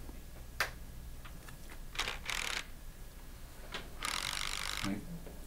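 Power ratchet wrench run in two short bursts, one about two seconds in and a longer one about four seconds in, driving down the nuts of the small clamp bands on a metal diaphragm pump, with a few light metal clicks between.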